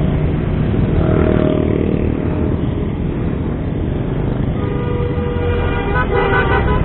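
Roadside traffic: a steady rumble of passing engines. About four and a half seconds in, a vehicle horn sounds for about a second, then honks again in shorter blasts near the end.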